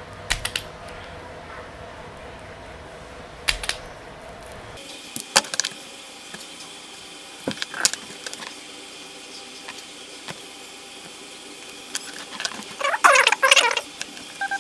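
Workbench handling sounds: scattered sharp clicks of a self-adjusting wire stripper and hand tools, then a louder, dense scratchy rustle of wires and plastic being handled near the end.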